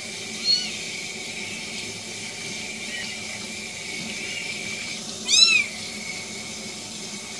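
A young kitten meowing while it is washed under a running kitchen tap. A few faint, high mews come in the first half, then one loud, high-pitched meow about five seconds in, over the steady hiss of tap water into a stainless steel sink.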